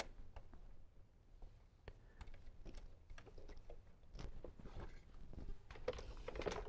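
Faint scattered clicks and crackling handling noise as a power wire with a crimped ferrule is worked into an amplifier's power terminal, the crackling growing denser in the second half.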